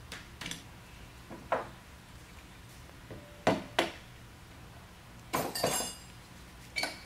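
Sharp metal-on-metal clinks from a pin punch and small steel pins knocking against a pallet jack hydraulic unit's housing, a few seconds apart, with a quick run of ringing clinks about two-thirds of the way through.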